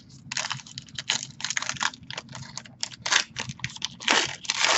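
Crinkling and tearing of a football trading card pack's wrapper as it is opened by hand: a quick, irregular run of crackles and rustles, with a longer crinkle about four seconds in.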